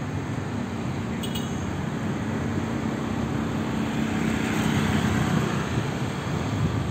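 Car engines running at low speed as cars pull through a parking boom gate: a steady low hum with road noise that swells around four to five seconds in. There is a brief high click about a second in.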